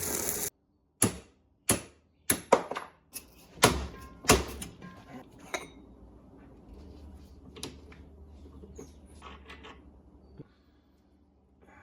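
A loud steady noise cuts off abruptly, followed by a run of sharp knocks and clanks, about nine in five seconds, as metal tools or parts are handled and set down, then softer scattered clicks and clatter.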